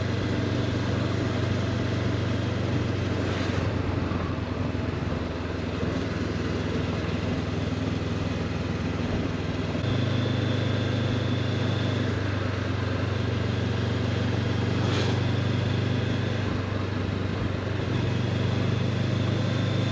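Honda CB500X parallel-twin engine running steadily while riding, with wind and road noise. The engine note steps up about halfway through, eases briefly and rises again near the end.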